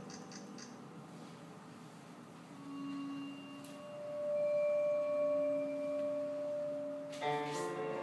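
Quiet recorded orchestral music: a brief run of high pips at the start, then long held pure-sounding notes, first a low one and then a higher one, until strings come in with a fuller chord about seven seconds in.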